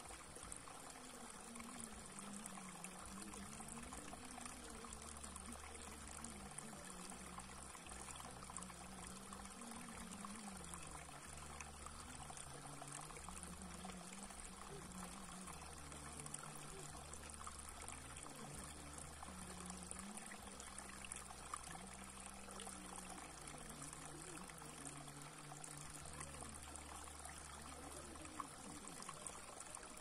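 Shallow water trickling steadily down a flat rock channel and spilling into a still pool, a soft, even trickle.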